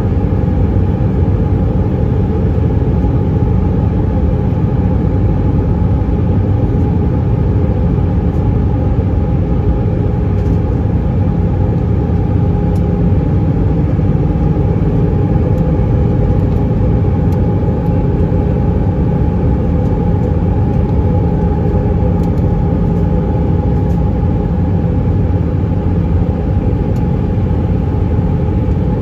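Steady cabin noise inside an Airbus A319-132 with flaps extended on approach: the drone of its IAE V2500 turbofans and the rush of airflow over the wing, with a steady hum running through it.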